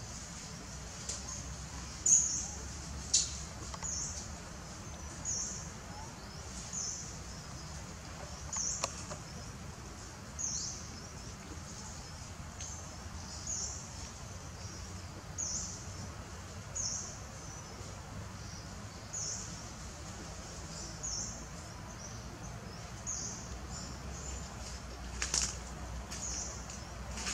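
A short, high-pitched chirp repeating roughly once a second over a steady low background hiss, with a couple of sharp clicks about two and three seconds in.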